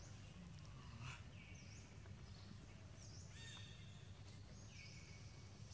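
Faint forest birdsong: a bird repeats a short high chirp about every second and a half, with a few longer held whistled notes between, over a steady low background hum.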